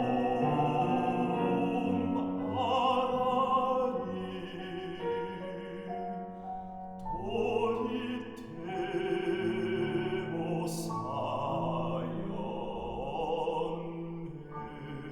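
Operatic baritone singing long notes with a wide vibrato over classical instrumental accompaniment.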